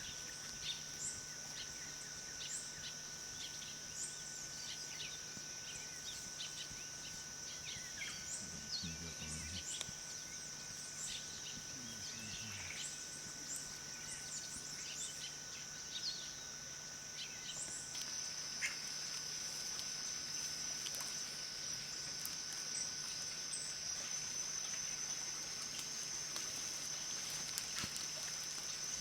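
Tropical forest ambience: a steady high-pitched insect drone that grows a little brighter about two-thirds of the way through, with many short scattered bird calls over it. Faint voices murmur briefly in the first half.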